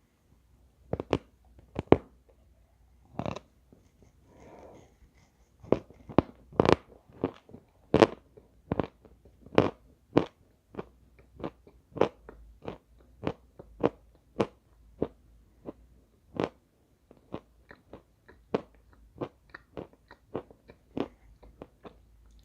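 A person biting into and chewing chalk, making sharp crunches about one or two a second, with a softer rustle about four seconds in.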